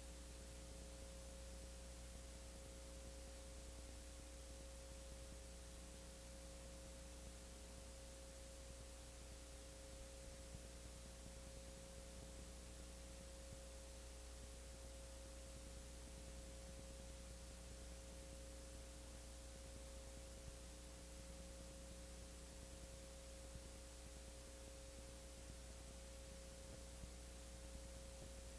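Near silence: a steady electrical hum and a constant mid-pitched tone over hiss, unchanging throughout, as on the soundtrack of a transferred silent home movie.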